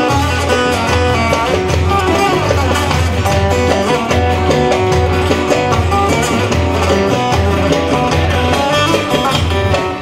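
Amplified bağlama (Turkish long-necked saz) playing an instrumental folk tune with quick plucked notes over a low, regularly pulsing bass.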